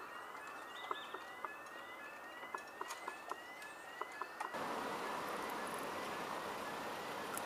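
Automatic level crossing alarm sounding a short rising tone over and over, about twice a second, warning that a train is approaching and the barriers are lowering. About halfway through, a steady rush of road traffic noise rises and the alarm carries on more faintly beneath it.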